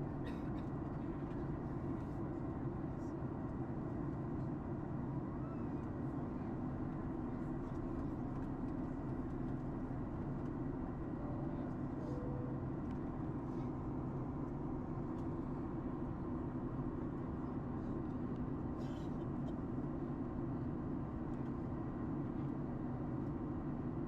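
Steady low rumble of airflow and engines heard inside the cabin of a Boeing 737 MAX 8 airliner descending on approach to land.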